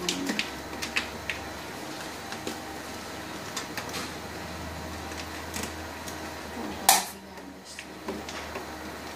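Plastic dialysis bloodline tubing and connectors being handled and pressed into the clips and holders of a hemodialysis machine: scattered light clicks and rattles, with one sharp, louder snap about seven seconds in. A low steady hum runs underneath.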